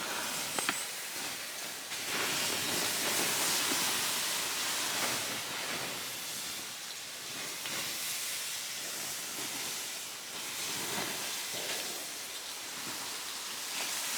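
Water poured onto the campfire's embers, hissing and steaming steadily as the fire is put out.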